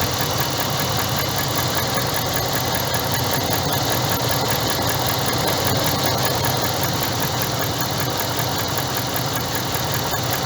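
Dodge Ram pickup engine idling steadily, heard close up at the open hood, with a fast, light, regular ticking over the running.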